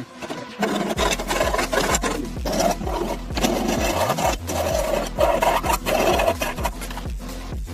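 A rasping, rubbing noise in short repeated strokes over a steady, rhythmic bass beat of background music.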